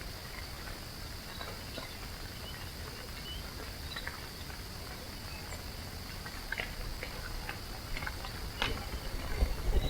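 Night-time woods ambience: a steady, high-pitched insect chorus with scattered faint ticks and clicks, then from about eight seconds in, louder irregular low bumps and rustling.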